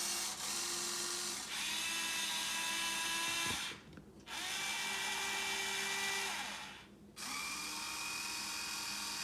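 Electric gear motors of a metal RC excavator whining as it moves, in three runs with two brief stops, about four and seven seconds in.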